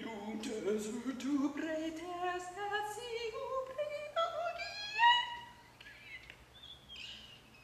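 A woman's voice sings one long rising slide, climbing in small steps from low to high over about five seconds, then breaking off. A few faint vocal sounds follow near the end.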